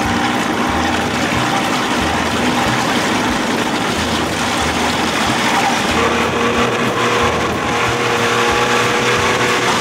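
1992 Johnson 60 hp two-stroke outboard running under way, with water rushing past the hull and wind on the microphone. A higher steady tone joins the engine note about six seconds in as the boat picks up speed.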